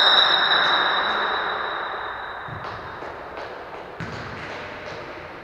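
A long, steady, high-pitched signal tone in a futsal hall, cutting off about two and a half seconds in, over echoing hall noise that fades away; then a few light thuds like a ball bouncing on the court.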